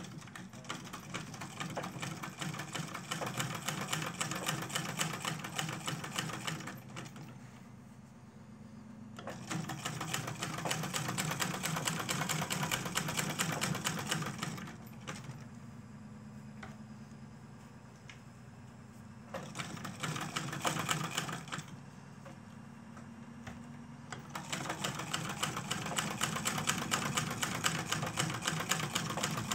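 Sewing machine stitching through two layers of leather, running in four bursts of rapid, even stitches with short pauses between them.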